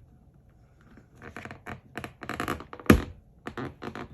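Paper rustling and crinkling as a thick stack is handled, then one sharp clunk about three seconds in as the stapleless stapler is pressed down on it. The stack is too thick for the stapler: it punches a hole but does not cut the slit or fold the tabs through.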